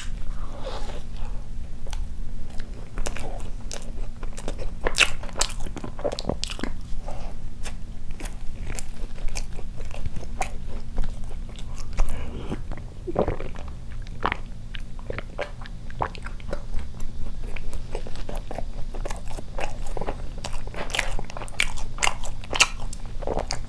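Close-miked eating: bites into a cream-filled doughnut, then wet chewing with many small mouth clicks and smacks. There are gulps of water from a glass about halfway through, over a steady low hum.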